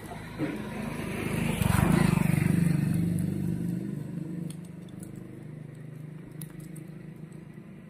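A motor vehicle's engine passing by, swelling to its loudest about two seconds in and fading away by about four seconds, over a steady low engine hum.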